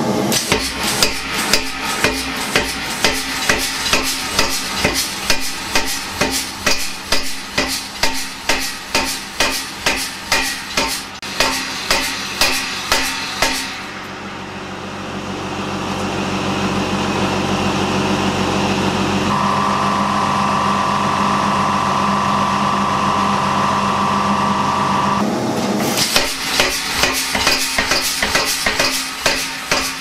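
Homemade pneumatic power hammer striking a red-hot steel bar in a rapid, even run of blows, drawing it into an octagonal section. About halfway the blows stop for some twelve seconds, leaving a steady mechanical hum with a high steady whine joining it for a few seconds. Near the end the hammering starts again.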